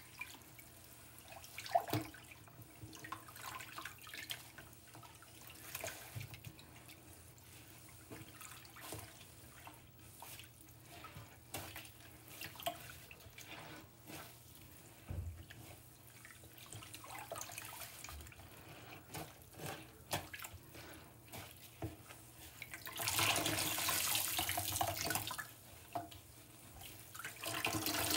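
Soaked kitchen sponges squeezed and swished under soapy water in a stainless steel sink: soft squelches and small splashes. Late on, for a couple of seconds, and again at the very end, a louder rush of water pouring out as a sponge is lifted and wrung out over the sink.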